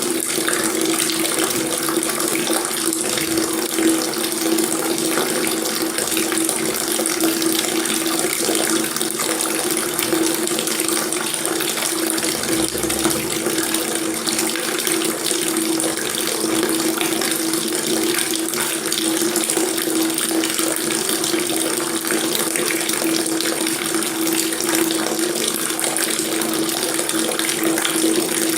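Water tap running steadily, a continuous even splashing stream with a low steady hum of water in the basin or pipe.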